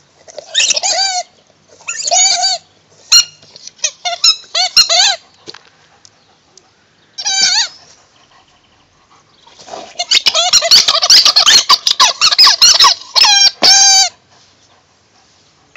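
A dog's squeaky frisbee toy being squeaked over and over: short groups of squeaks, then a fast, dense run of squeaks lasting about four seconds near the end.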